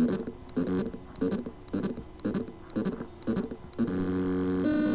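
Spindle motor of a 6 TB WD 3.5-inch hard drive humming in short pitched pulses about twice a second, then two longer steady hums near the end. It is the sound of loose motor contacts: the motor can spin but cannot reach full speed.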